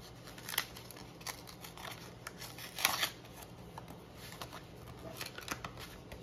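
Paper greeting-card envelope being opened by hand: short crackles and rustles of stiff paper as the flap is pulled open and the card starts to slide out, loudest about three seconds in.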